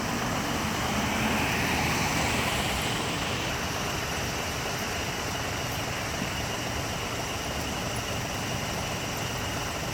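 Steady road traffic noise, swelling as a vehicle passes in the first few seconds, then a constant hiss of the road.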